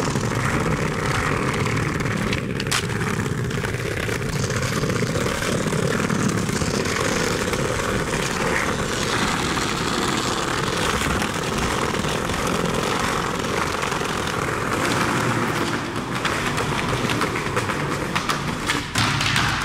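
Skateboard wheels rolling over brick pavers make a steady rumble. There is a sharp clack about three seconds in and a couple more near the end.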